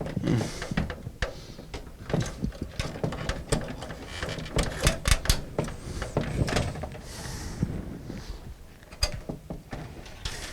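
Irregular clicks, taps and knocks of computer case parts and components being handled and worked loose during a desktop PC teardown, thickest about halfway through.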